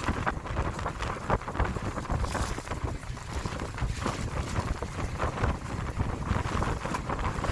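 Strong wind buffeting the microphone aboard a boat at sea, an uneven gusty rumble with sharp bumps throughout.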